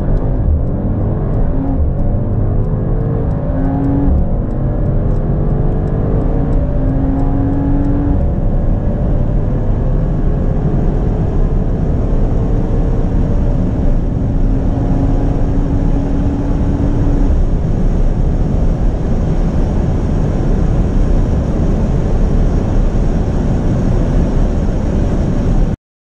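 Mercedes-AMG GT 63 S twin-turbo V8 at full-throttle acceleration. Its pitch climbs through each gear and drops back at the upshifts, then runs steadier at high speed. The sound cuts off suddenly near the end.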